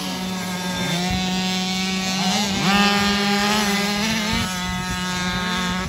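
50cc two-stroke motocross bikes racing: engines rev up in rising pitch sweeps about a second in, around two and a half seconds in and again about four seconds in, over a steady engine tone from another bike.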